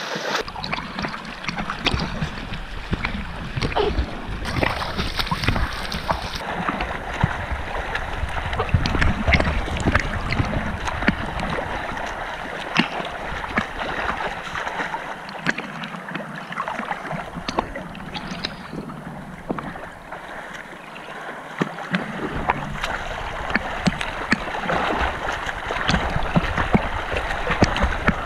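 Water splashing and churning from swimmers' front-crawl strokes, a dense crackle of small splashes, with wind rumbling on the microphone.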